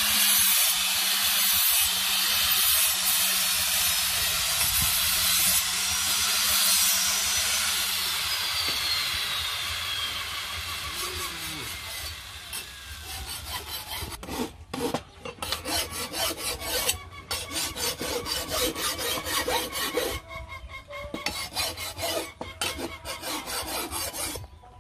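Handheld angle grinder sharpening the edge of a steel knife blade: a loud steady hiss of disc on steel over the motor's hum. About eight seconds in it is switched off and its whine falls away as the disc spins down. After that come quieter, irregular scrapes and clinks of steel blades being handled.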